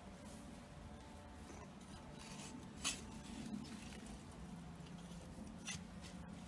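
Faint rustling and scraping of soil and potato plants being handled while the potatoes are dug up, with a sharp click about three seconds in and another near the end.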